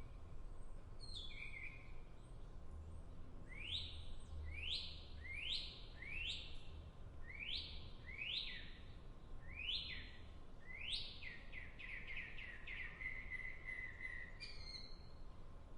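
A songbird singing a series of sharp, downward-sliding chirps, about one a second, that speeds up into a quick trill and ends on a short held lower note.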